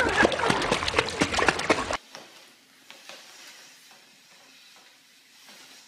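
Splashing from a small dog paddling in a swimming pool, which cuts off suddenly about two seconds in. Faint room noise with a few light knocks follows.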